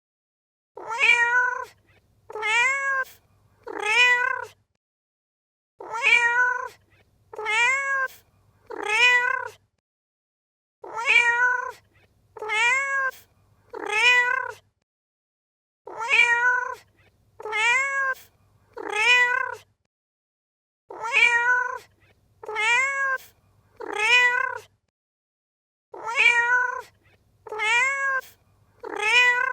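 Domestic cat meowing in a repeating pattern: four meows in quick succession, then a short pause, the group recurring about every five seconds. Each meow rises and then falls in pitch.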